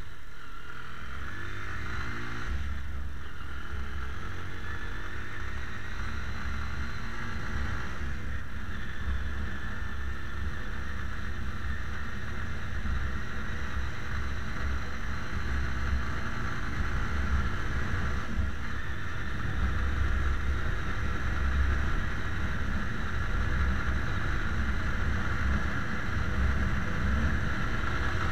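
Motorcycle engine running under way, its pitch rising over the first few seconds as it accelerates, then holding steady at cruising speed. Steady wind and road rush on the bike-mounted camera's microphone runs through it.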